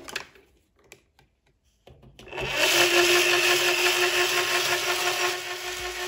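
Hobby rock tumbler starting up: after a few faint clicks, its motor comes on about two seconds in with a steady hum. The barrel then turns, churning stainless steel shot, soapy water and wire jewelry components in a steady, really loud rattle.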